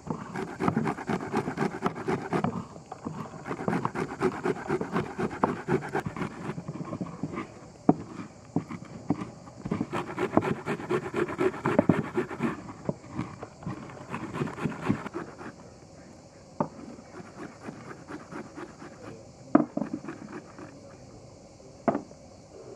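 Red onion being grated on a stainless-steel box grater: runs of quick rasping strokes with short pauses. After about 15 seconds it goes quieter, with a few single sharp knocks.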